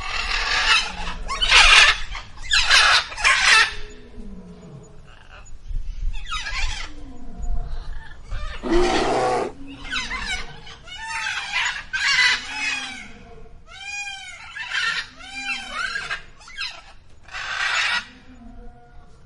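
Domestic fowl calling: a string of harsh squawks and clucks, with a quick run of short rising-and-falling notes about two-thirds of the way through.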